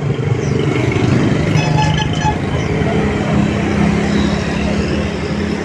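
Busy street traffic in front of a market: motor vehicles, motorcycles among them, running and passing, with a steady engine hum.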